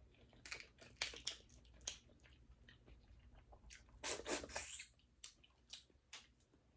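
Close-up eating sounds of boiled crawfish: wet mouth clicks, chewing and crackling of shell, with a longer, louder wet sound about four seconds in.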